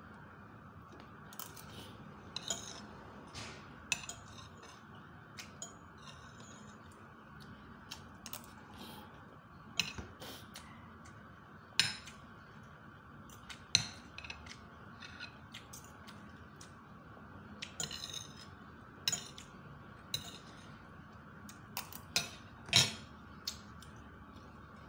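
Metal fork and spoon clinking and scraping against a plate during eating, in scattered sharp clicks every second or two, a few louder than the rest.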